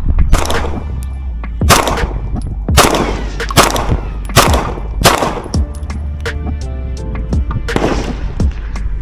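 Beretta PX4 Storm 9mm pistol firing a string of about seven shots roughly a second apart, each with a trailing echo, over background music.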